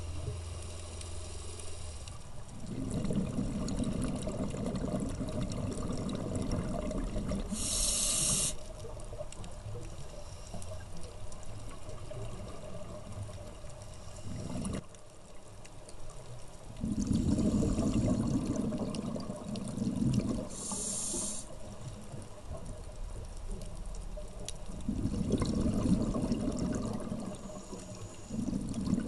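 Scuba regulator breathing underwater: short hisses of inhaled air through the regulator, about every ten seconds, alternating with several-second rumbling bursts of exhaled bubbles.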